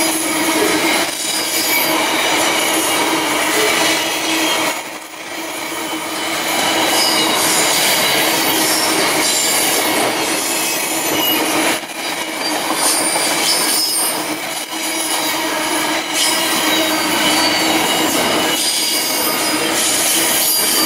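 A long freight train of boxcars and refrigerated vans rolling past, its wheels on the rails giving steady squealing tones over the rolling noise. The sound dips briefly a few times.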